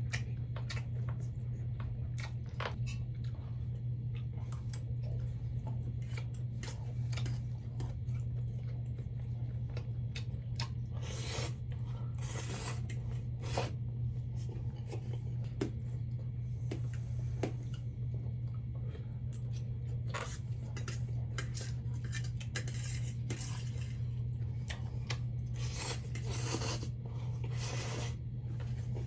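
Eating spicy ramen noodles and shrimp: utensils clicking and scraping against the bowl and plate, with chewing, in many short irregular sounds over a steady low hum.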